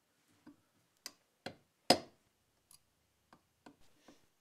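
Hammer striking a punch to drive a roll pin through the starter drive and shaft of a Briggs & Stratton electric starter: about eight sharp taps at uneven spacing, the loudest about two seconds in.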